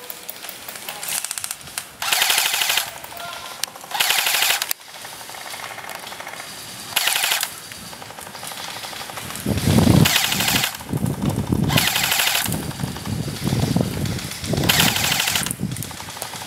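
Airsoft electric guns firing short full-auto bursts, a rapid mechanical clatter repeated six or seven times. A low rumble runs under the second half.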